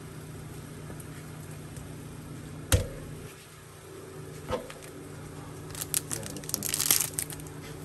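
Two light knocks, then from about six seconds in the crackling and crinkling of a foil 2023 Topps Chrome Cosmic card pack wrapper being torn open by hand, over a steady low hum.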